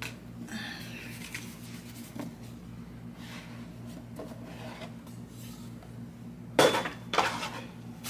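A cardboard presentation box being handled and opened: soft rubbing and rustling, then two louder scrapes near the end. A steady low hum runs underneath.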